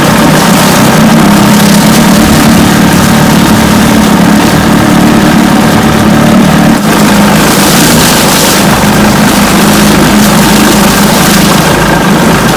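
1980 Chrysler 45 hp two-cylinder two-stroke outboard motor running steadily in gear. It is running more smoothly with the carburettor adjustment screw turned in about half a turn.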